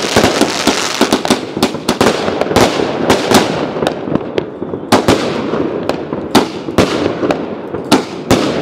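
Fireworks going off in a dense barrage: sharp bangs in quick succession over a continuous crackle.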